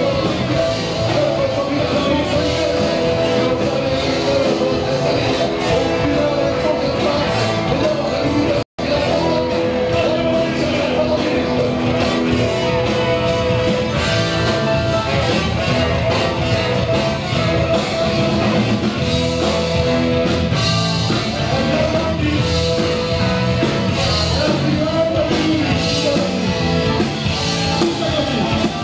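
A live band plays loud rock and roll with singing, guitar and a steady beat. The music drops out for an instant a little under nine seconds in.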